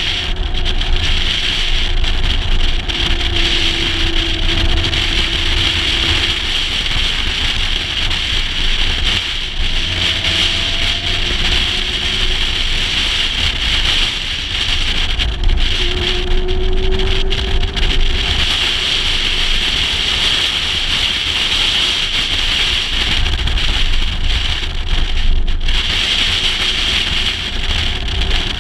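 Wind rumbling over a microphone mounted on the outside of a moving 1956 Mercedes-Benz 300 SL, with the car's fuel-injected straight-six heard faintly underneath, its note rising a few times as it accelerates.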